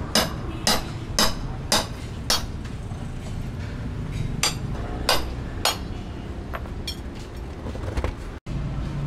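Hammer blows, about two a second for the first couple of seconds, then three more spaced strikes and a few light clinks, over a steady low hum.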